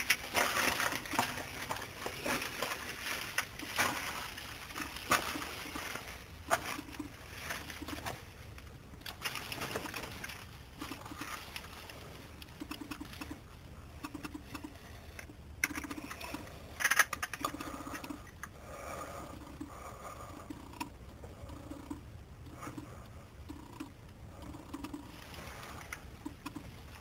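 Footsteps on the loose rock and gravel floor of a narrow mine tunnel, with crunches, scuffs and sharp clicks of stones. Later they settle into softer, even steps about once a second.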